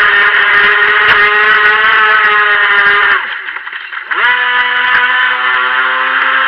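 Brushed electric silver-can motor of a Helion Rivos RC boat whining steadily at high throttle. The whine drops away about three seconds in as the throttle is let off, then spins back up with a quick rise in pitch a second later and runs steady again.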